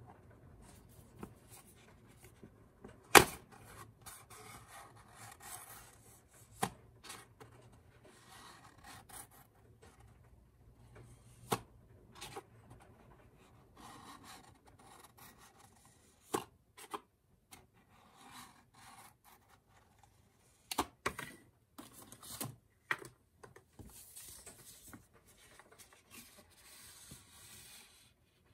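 Paper and cardboard being handled: a folded photo strip unfolded and a small card case moved about, with soft rubbing and rustling and scattered sharp taps and clicks, the loudest about three seconds in.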